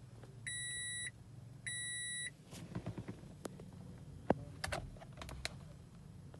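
Two steady electronic beeps, each just over half a second long, followed by a scattering of light clicks and taps like buttons being pressed.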